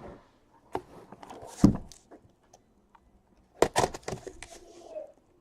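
Handling noises of cardboard boxes being moved and opened with a knife: scattered clicks and rustles, a dull thump about a second and a half in, and a cluster of sharp knocks a little past halfway.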